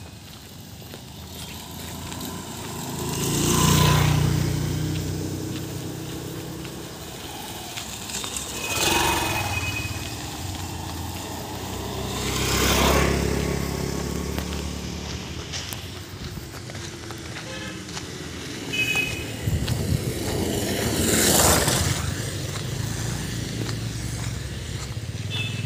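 Motor scooters and motorcycles passing along a narrow lane one at a time: four passes, each engine rising and fading, one of them a scooter about halfway through.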